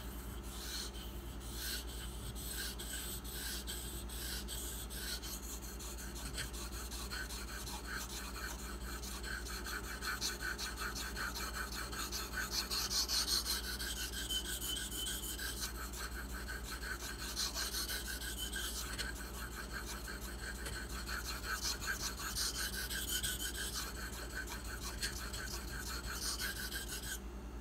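Bark River Bravo EDC knife blade of 154CM steel drawn lightly back and forth across a whetstone, a continuous run of scraping strokes working the apex of the edge. The strokes grow louder for a few seconds twice and stop near the end.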